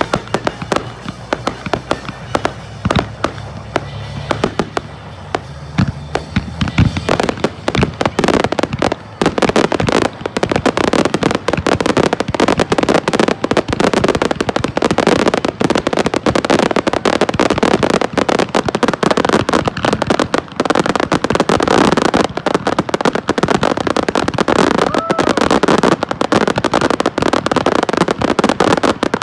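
Fireworks going off: separate bangs for the first several seconds, then from about seven seconds in a dense, unbroken barrage of rapid reports and crackle.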